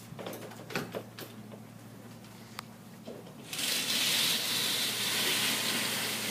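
A few light clicks and knocks, then a steady hiss that starts suddenly about three and a half seconds in and carries on, slowly fading.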